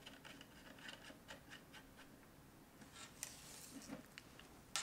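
Faint handling sounds: light clicks and rubbing as hands work small parts on a tabletop, with a brief scratchy rustle about three seconds in.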